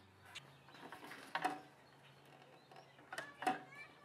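Faint, scattered clicks and light knocks from a motorcycle's plastic body panel, its metal bracket and fastening clips being handled and slid out by hand.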